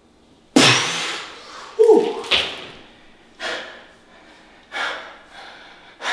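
A man's forceful, heavy exhalations and a short strained grunt, five sharp breaths about a second apart, the effort of pushing through the last reps of a set.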